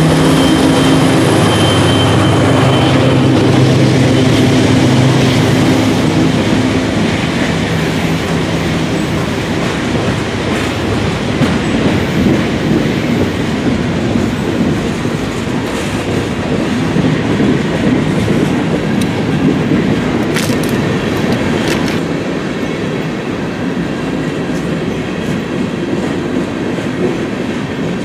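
A KCS freight train passing close by: the trailing diesel locomotive's engine is heard for the first few seconds and fades, then covered hopper cars roll past with a steady rumble of steel wheels on the rails. A couple of sharp metallic clanks come about twenty seconds in.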